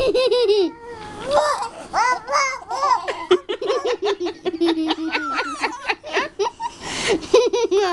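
A woman laughing in repeated bursts, mixed with baby babbling and vocalizing.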